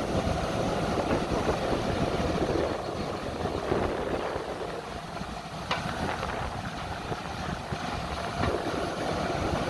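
Diesel engine of heavy earth-moving machinery running steadily, with a sharp knock a little past halfway and a few fainter ones.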